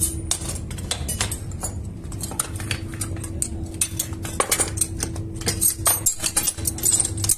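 Steel tongs and rods clinking and scraping against a crucible and steel moulds at a charcoal casting furnace, many short irregular clinks over a steady low hum and rumble.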